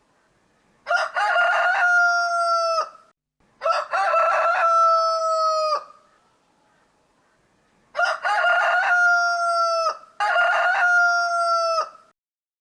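Rooster crowing four times, each crow about two seconds long and dropping in pitch at its end; the last two come almost back to back.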